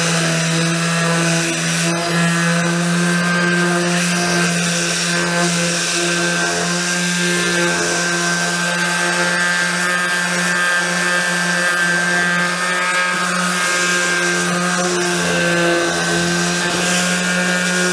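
Handheld electric sander running steadily against the wooden frame of a folding deck chair, with a constant motor hum.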